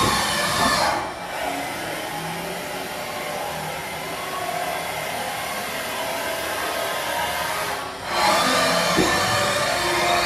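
Haas VM-6 vertical machining centre's table traversing under power. A loud rushing mechanical noise plays for about the first second and again from about eight seconds in, with a quieter steady machine hum between.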